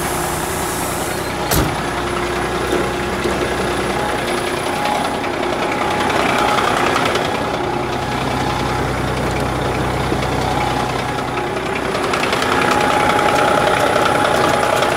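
Heavy truck engine idling steadily, with one sharp click about a second and a half in.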